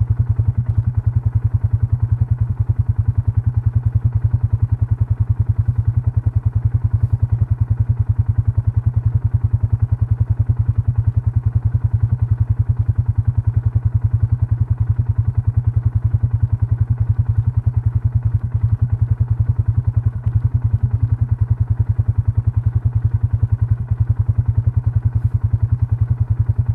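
A farm vehicle's engine idling steadily close by, with an even, fast firing beat and a strong low hum.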